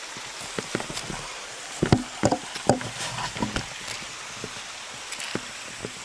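Footsteps of LOWA Renegade hiking boots on forest ground covered in dry leaves: irregular crunches and rustles, with a run of heavier steps about two to three and a half seconds in.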